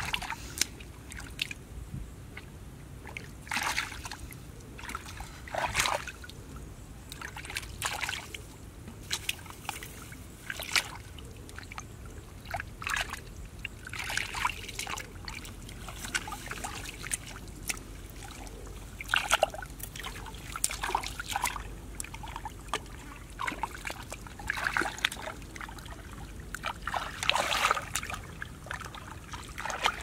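Shallow muddy water sloshing and splashing as hands grope through the mud and feet shift in the water, in irregular short splashes and trickles every second or so.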